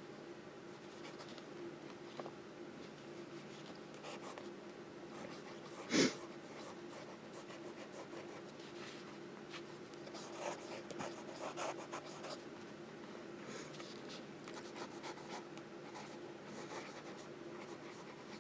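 Fountain pen nib scratching faintly across planner paper as words are written, over a faint steady hum. A single short thump about six seconds in.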